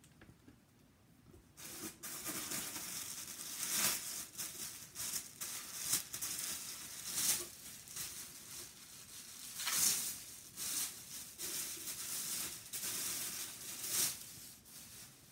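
Packing material in a cardboard box rustling and crinkling as items are dug out and unwrapped by hand. It starts about a second and a half in and comes in repeated waves, louder and softer, until just before the end.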